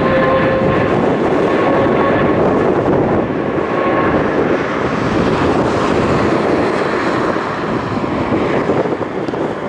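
Jet engines of a departing Boeing 777-300 running at takeoff power: a loud, steady rumble with a few whining tones that fade out about four seconds in, the noise slowly dropping off as the aircraft moves away.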